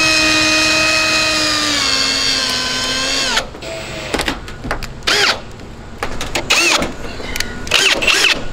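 Power drill driving a screw into a metal roof panel. The motor runs steadily for about three seconds, its pitch sagging slightly as the screw bites. Then it stops and winds down, and a few short bursts of the trigger follow.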